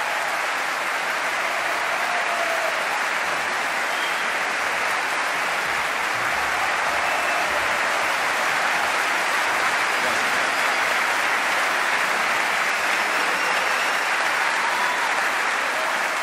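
A large audience applauding steadily, with a few faint cheers.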